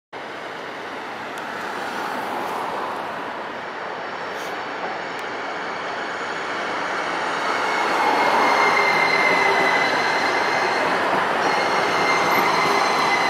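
TriMet MAX light-rail trains running on street track: a steady rail rumble with a high steady tone that comes in about halfway, growing louder about eight seconds in as a train draws close.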